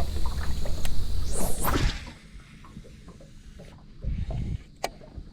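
A fishing rod swishing through the air on a cast about a second and a half in, over a low rumble that stops about two seconds in. A dull thump follows near four seconds, then a single sharp click.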